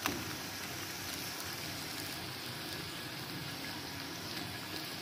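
Potato-and-onion fritters in gram-flour batter sizzling steadily in deep hot oil, with one brief knock right at the start.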